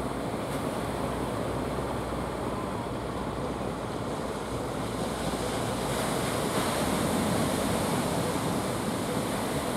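Surf breaking on the beach, a steady rushing of waves that grows a little louder about six seconds in.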